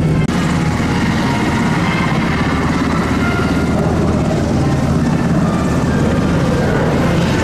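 F-15J fighter's twin Pratt & Whitney F100 turbofan engines, loud steady jet noise as it flies a low pass, with a brief dropout just after the start.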